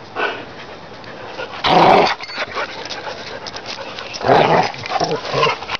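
Husky-type dog making rough, unpitched vocal sounds in short bursts, two louder ones a couple of seconds apart.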